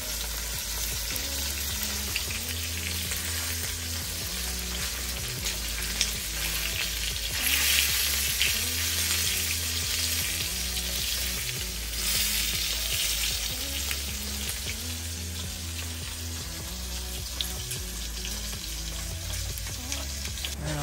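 Steak frying in a metal pot on a portable gas stove, a steady sizzle with a spoon scraping and stirring the meat. The sizzle swells louder twice, about a third of the way in and again just past the middle.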